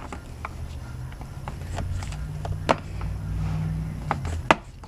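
Sharp plastic clicks and snaps as push-clips are worked out of a 2018 Honda Fit's lower front bumper cover, the loudest about halfway through and near the end, over a low steady hum.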